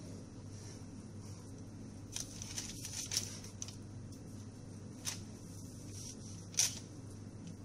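Kitchen knife slicing down through rolled raw phyllo pastry for baklava: several short, crisp crackles as the blade cuts the layers, over a steady low hum.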